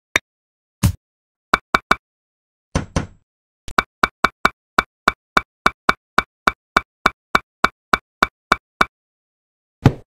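Miniature clay bricks being tapped into place: a few separate knocks, a short scrape about three seconds in, then a quick, even run of sharp clicks, about three a second, for some five seconds. One more knock near the end.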